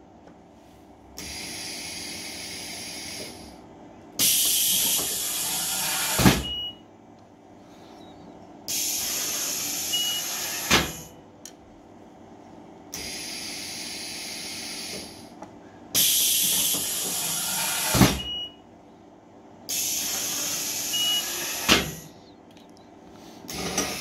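Home-built Arduino-controlled can filler cycling: six bursts of pressurised gas hissing through its solenoid valves and blue pneumatic lines, each about two seconds long, alternately softer and louder. Several of the louder bursts end in a sharp click as a valve snaps shut, and a brief high beep sounds now and then.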